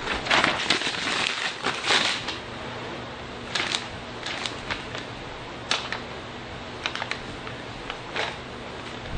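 A series of irregular light clicks and taps, bunched together in the first couple of seconds and then coming singly every second or so, over a steady background hiss.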